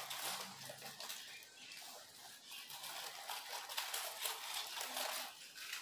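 Rustling and crackling as hands work among the leaves and pitchers of a potted Nepenthes pitcher plant, an irregular run of small scrapes and brushes.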